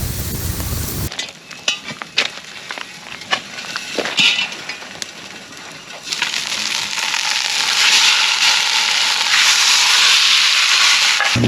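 Campfire crackling with scattered sharp pops, then from about halfway a loud, steady sizzle of food frying over the fire.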